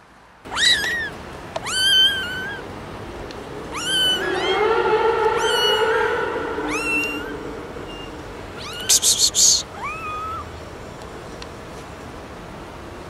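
Young kittens meowing, a string of short, high-pitched, wavering meows, with a longer, lower-pitched meow in the middle. About nine seconds in there is a quick run of four sharp, noisy bursts.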